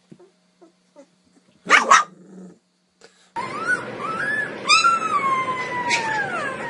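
A puppy gives one short, sharp yip about two seconds in. From about three and a half seconds a puppy howls in long, wavering cries that rise and then slide down in pitch, over a steady background hiss.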